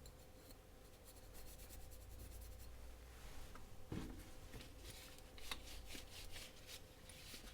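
Faint rubbing and scratching as the disassembled knife's blade is handled and wiped, with a few light metallic ticks.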